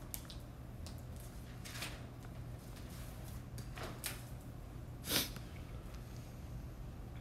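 Quiet room tone with a steady low hum and a few brief soft noises, the loudest about five seconds in.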